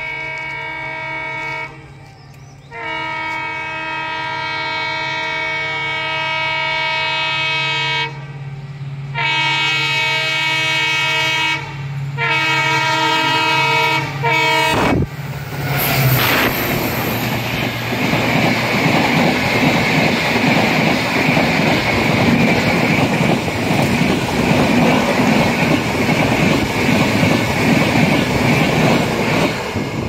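Jan Shatabdi Express passenger train sounding its multi-tone horn in several long blasts with short breaks as it approaches, getting louder. About halfway through the locomotive passes close with a sharp crack, and the coaches then rush past at speed with a continuous rumble and clatter of wheels on rails.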